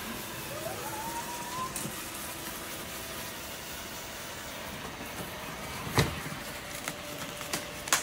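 Shark ION 750 robot vacuum running steadily as it drives down a cardboard ramp, with a single sharp thump about six seconds in.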